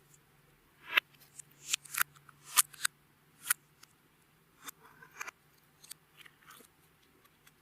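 Hands working clear slime, giving a series of sharp sticky clicks and pops as it is pressed and stretched, loudest in the first few seconds and fainter toward the end.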